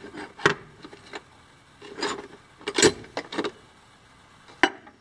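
Rummaging in a glass jar of tools and markers: items scrape and clatter against the glass and each other in several short bursts, with a sharp clink near the end.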